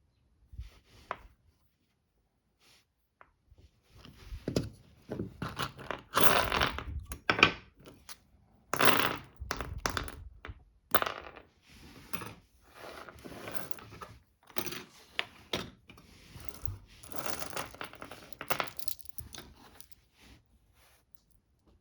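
Cardboard ammunition box being opened and handled: about four seconds in, a long run of irregular tearing, crinkling and scraping begins, with small clattering knocks, and it dies down shortly before the end.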